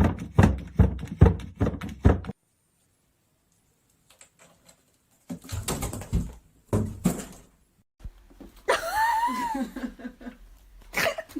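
A quick run of knocks and thumps, then after a gap a few more. Near the end comes a drawn-out call that rises and falls in pitch, like a cat meowing.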